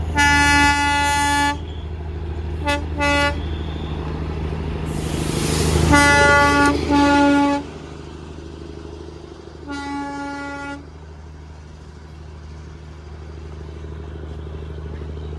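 A vehicle horn tooting over a steady engine rumble: one long toot, two short ones, a pair about six seconds in and one more near ten seconds. A rushing hiss swells around five seconds.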